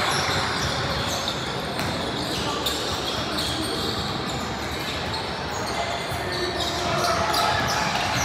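Voices of players and spectators echoing in a large gymnasium, with a basketball bouncing on the hardwood court now and then.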